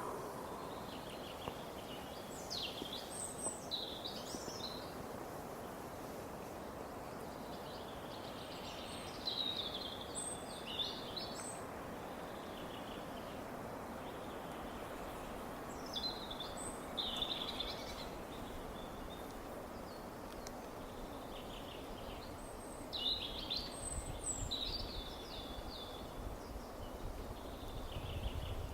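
Songbird singing in four short bursts of chirps a few seconds apart, over a steady rush of wind in the trees.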